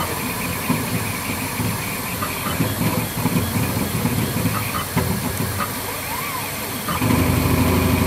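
A machine running with an irregular low clatter, then a motor starts suddenly about seven seconds in and runs with a steady, louder low hum.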